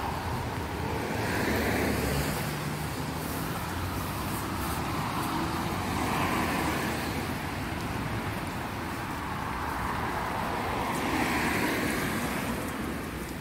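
Street traffic: cars driving past, their tyre noise swelling and fading three times over a steady traffic hum.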